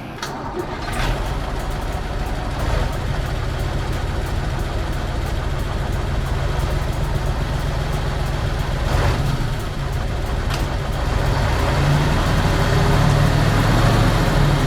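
A motor vehicle's engine running steadily with a strong deep hum, growing a little louder near the end.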